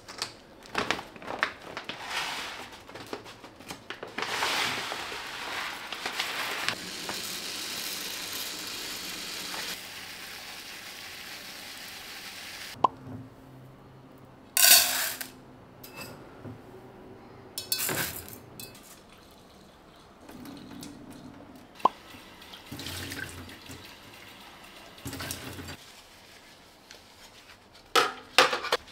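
Dry rice poured and scooped with a clatter of grains, then a tap running steadily into a metal pot as the rice is rinsed, followed by intermittent splashing, knocks and sharp clinks of the aluminium pot. Near the end the pot clatters as it is set into an electric rice cooker.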